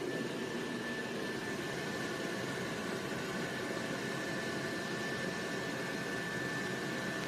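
Xiaomi Robot Vacuum X20 Pro running: a steady rushing noise from its suction fan, with a thin high whine held on top.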